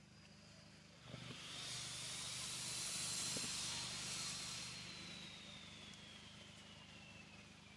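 A vehicle passing by: a hiss that swells for about two seconds and then fades, with a faint whine sliding down in pitch as it goes, over a steady low hum.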